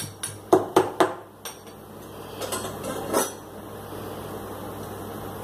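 Garlic cloves being pounded with a metal pestle in a small stainless-steel cup: three quick metallic strikes about half a second in, then a few more clinks and knocks around three seconds in.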